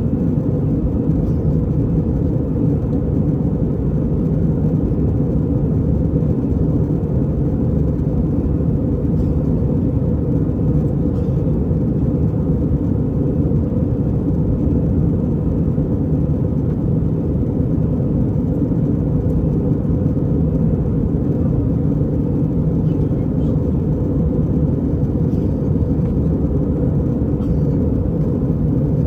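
Steady low rumble inside the cabin of an Airbus A320 airliner: engine and airflow noise, even and unchanging throughout.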